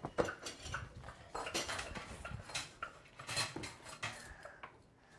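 Kitchen utensils clinking and scraping against pots and dishes, a run of irregular knocks and scrapes that thins out near the end.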